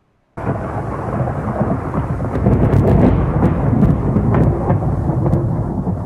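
Thunder: a loud rolling rumble that starts abruptly about half a second in, with sharp crackles running through it.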